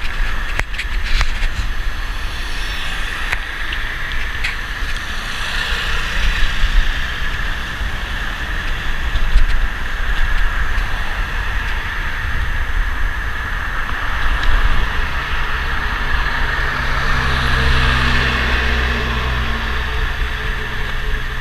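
Steady rush of wind over the microphone and tyre noise of a bicycle riding on an asphalt street. Near the end a motor vehicle's engine hum joins in.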